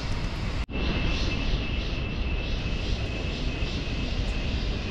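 Steady outdoor background noise: a low rumble with a thin, steady high tone above it. The sound drops out completely for an instant just under a second in.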